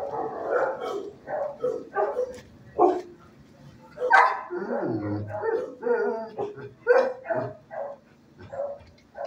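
Dogs barking over and over in shelter kennels, short barks coming about twice a second.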